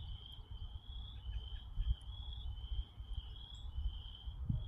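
Crickets chirping in an unbroken run of short trills, about two a second, over a low rumble.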